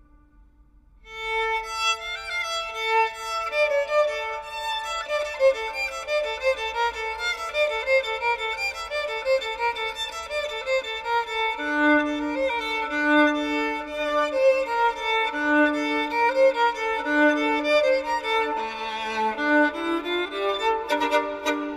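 Instrumental music led by a violin. It enters about a second in, a melody moving over held lower notes, and near the end a run of notes steps upward.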